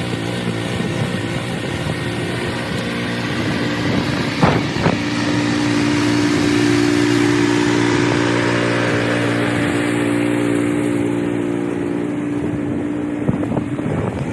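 Cub Cadet 3X 30 HD three-stage snowblower's engine running steadily under load, with two sharp knocks about four and a half seconds in.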